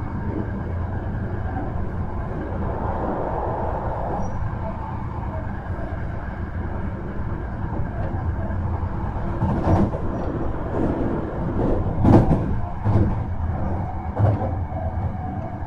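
Hankyu 1300 series electric commuter train running, heard from inside the car: a steady rumble of wheels on the track, with a few sharp clacks in the second half as the wheels pass over rail joints.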